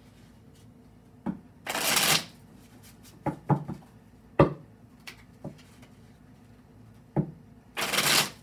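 A deck of tarot cards shuffled by hand: two brief rushes of riffling cards, one about two seconds in and one near the end, with several sharp taps between them.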